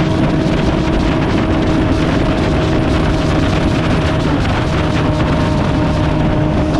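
A vehicle engine running steadily at an even speed, its pitch holding level under a heavy wash of road and wind noise.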